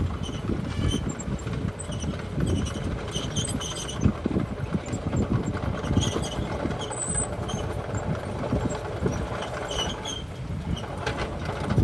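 Heavy earthmoving machinery running, with a low diesel rumble and irregular knocks and clanks, and short high squeaks here and there.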